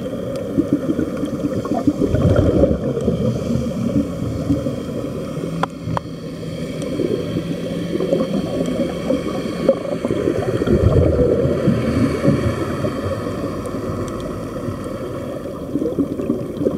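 Muffled underwater bubbling and crackling: air streaming out of open diving helmets, heard underwater. A faint steady hum runs underneath for a few seconds in the middle.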